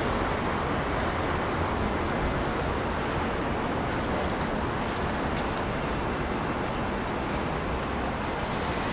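Steady urban background din: an even, continuous wash of noise with no single source standing out, and a few faint ticks.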